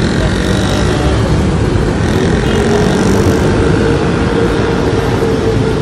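Steady road noise from riding in city traffic: a vehicle's engine running, with a constant hum that rises slightly partway through, over wind and road rumble on the microphone.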